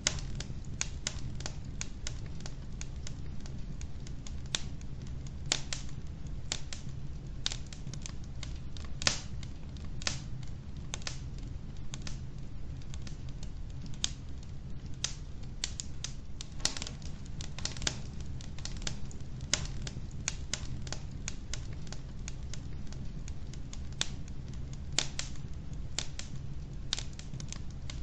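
Wood logs burning in a fireplace, crackling with a dense, irregular run of sharp pops and snaps, a few noticeably louder, over a steady low background.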